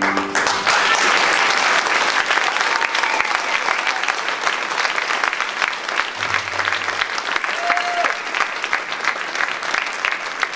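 Audience applauding at the end of a sung number; the last held chord breaks off right at the start and steady clapping fills the rest.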